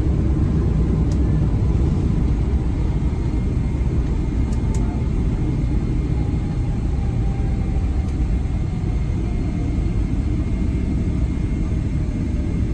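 Boeing 777-300ER heard from inside the cabin during landing rollout: a heavy, steady rumble of the wheels on the runway with the GE90-115B engine winding down, a faint whine slowly falling in pitch as the jet slows.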